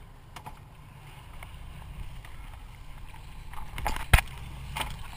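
Low, steady rumble aboard a dive boat, with several knocks and clunks from scuba gear being handled against a wrist-mounted camera, the loudest thump near the end.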